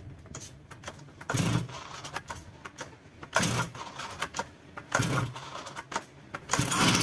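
Stihl FS400 brush cutter's two-stroke engine being pull-started on choke: four pulls of the recoil starter rope, roughly one every one and a half to two seconds, each a short cranking burst, the last one slightly longer.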